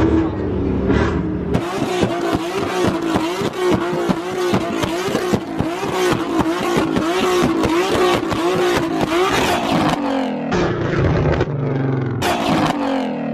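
Car engine revved up and held bouncing on the rev limiter, with a fast rattle of crackles from the exhaust. Near the end the revs drop away, then one more short blip.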